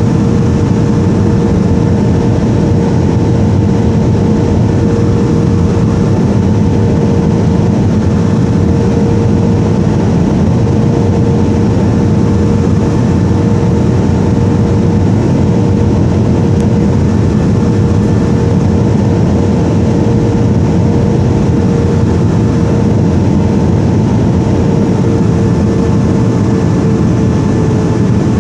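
Steady cabin noise of a Boeing 737-500: a deep rush of air and CFM56-3 turbofan engines running, with a steady engine tone that sinks slightly in pitch near the end.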